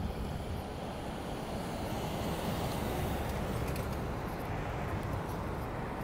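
Road traffic: a steady rush of passing vehicles that grows a little louder in the middle.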